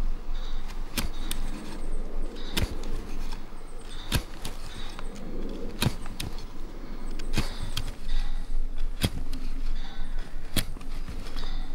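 Knife blade cutting into a wooden stick, stroke after stroke, to sever it through the middle: each cut gives a sharp click about every one and a half seconds, with softer scraping of the blade between.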